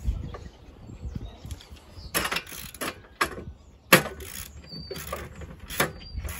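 Socket ratchet clicking in short separate strokes about a second apart, the loudest a sharp clack about four seconds in, as a spark plug is worked out of the engine for a compression test.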